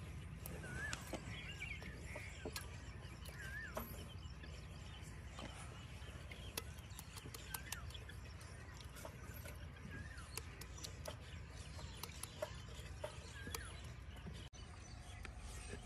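Faint scattered bird chirps, short curved calls every few seconds, over a steady low rumble, with occasional small clicks.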